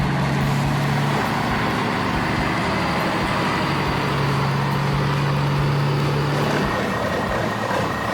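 Heavy truck engines running, with a steady low hum that drops out early and returns in the middle.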